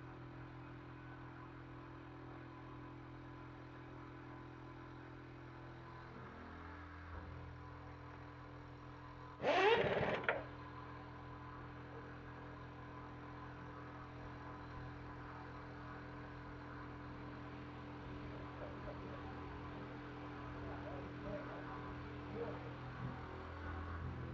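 CNC milling machine running: a steady hum from the spindle and feed as an end mill cuts a pocket in a metal block, shifting slightly about six seconds in. A short loud burst of sound about ten seconds in.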